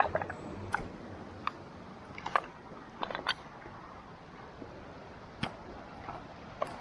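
Footsteps clicking and scraping on loose river rocks, a sharp click every second or so at an uneven pace, over the steady rush of flowing river water.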